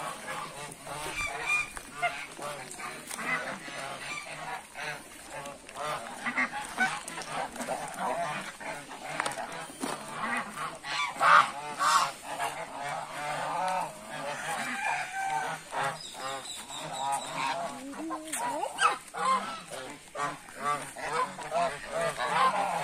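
A large flock of domestic geese honking continuously, many calls overlapping, with a louder burst of honks about halfway through.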